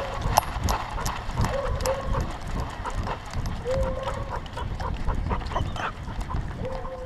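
A dog running with a camera on its harness: the thud and jostle of its footfalls, with many clicks and rattles from the harness and mount. Short squeaky whines come about every two seconds.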